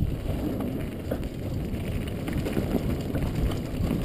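Downhill mountain bike running fast down a rough dirt trail: steady rumble of the tyres on the ground and the bike's rattle, with wind on the helmet-mounted microphone.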